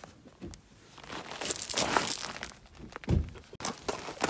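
Feathers rustling and gravel crunching underfoot as a dead grouse is stood on by its wings to be pulled apart and breasted, with a dull thump about three seconds in.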